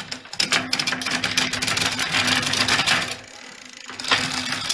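Bicycle drivetrain turned by hand: the chain runs over the sprockets with a rapid, dense ticking while the front derailleur shifts it toward the large chainring of a three-ring crankset. The ticking eases off for about a second and starts again near the end.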